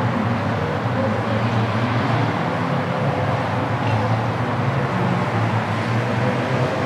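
Porsche sports car engines running steadily, a continuous low engine sound without a clear pass-by or rev change.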